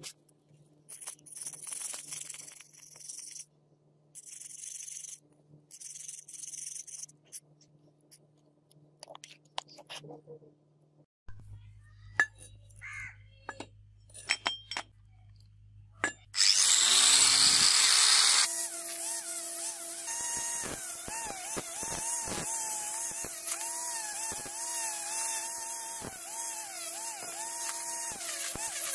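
Parts scrubbed with a stiff bristle brush in short hissing strokes, then a few clinks of small metal parts being set down. A bit past halfway an angle grinder with a wire cup brush starts with a loud burst and runs on steadily with a whine, brushing rust off the pipe cutter's metal frame.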